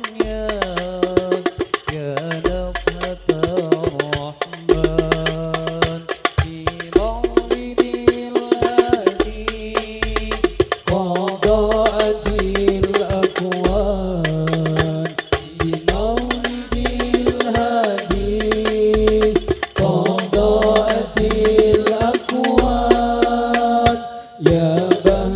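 Rebana ensemble playing a sholawat, an Islamic devotional song: a lead voice sings a flowing melody over a steady beat of frame-drum strikes and jingles, with deep sustained bass notes under each phrase.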